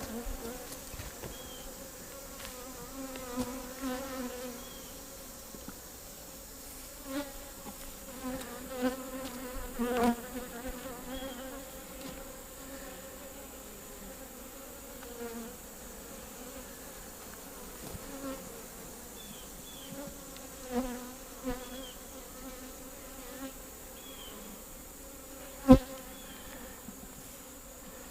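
Honeybees buzzing around an open hive, a steady hum with single bees swelling louder and fading as they fly close past. A single sharp knock near the end.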